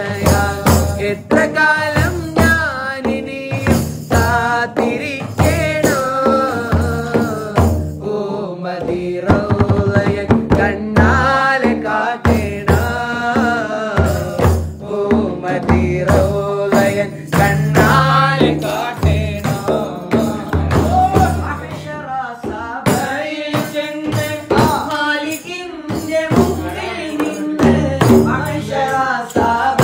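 Men singing a devotional song to hand-held frame drums (daf) beaten in a steady rhythm.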